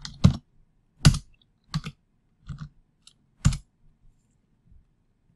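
Computer keyboard keystrokes: about seven separate key presses at uneven spacing, stopping after about three and a half seconds.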